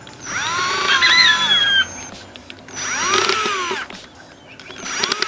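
Cordless electric screwdriver backing out the heatsink-bracket screws on an amplifier board. It runs in three short bursts, each rising and then falling in pitch as the motor speeds up and slows down.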